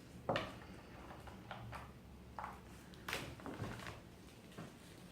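Handling noise from a laptop's AC adapter and charge cord: a few short knocks and clicks, the clearest about a third of a second in and another pair around three seconds in.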